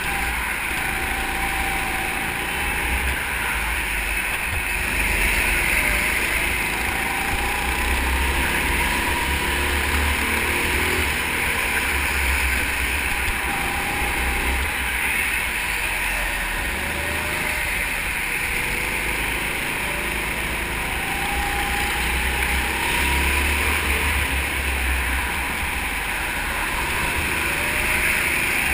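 Go-kart engine running while the kart laps the track, its pitch rising and falling with the throttle through the corners. Wind rumbles steadily on the microphone underneath.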